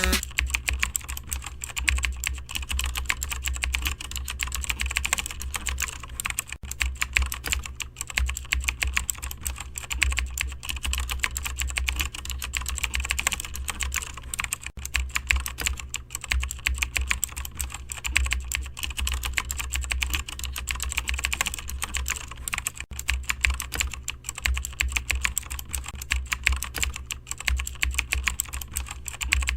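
Fast, continuous typing on a computer keyboard, key clicks coming in rapid runs over a steady low hum.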